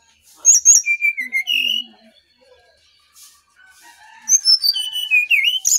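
Brown-chested jungle flycatcher singing two short phrases of clear whistled notes, each opening with high notes that step down into lower warbles.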